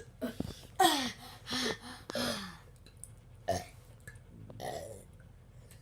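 A string of short burps, five or six in a row with gaps between, several of them dropping in pitch. The loudest comes about a second in and the later ones are fainter.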